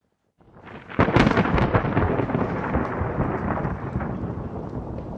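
Thunderclap sound effect: a rumble builds, a sharp crack about a second in with crackling, then a long rolling rumble that slowly fades.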